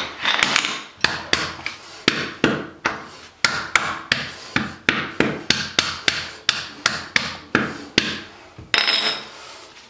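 Hammer tapping a new PVC toilet flange down into the freshly cemented drain pipe to seat it: a steady run of sharp knocks, about three a second.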